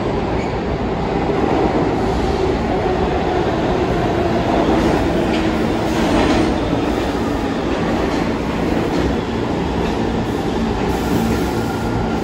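New York City subway train moving through the station, a loud, steady noise of wheels on rail.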